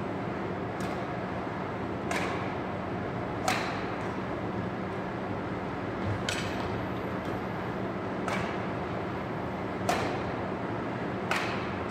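Badminton rackets hitting a shuttlecock back and forth in a rally: sharp smacks every one to two seconds, about seven in all, over a steady background hum.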